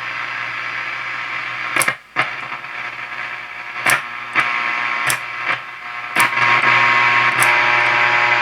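1949 Westinghouse H-104 tube radio giving out static and hum with faint whistling tones, no station coming in. Its preset push-buttons are pressed about eight times, each press a sharp click that switches the sound. The static turns louder for the last couple of seconds.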